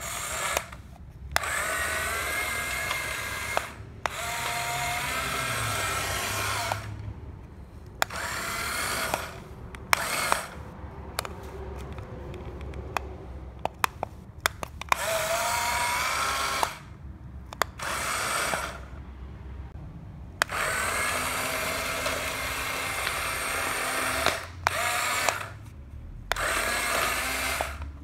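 Small electric motor of a corded remote-control Lightning McQueen toy car whining as it drives, in runs of one to four seconds that stop and start many times, with sharp clicks in the gaps.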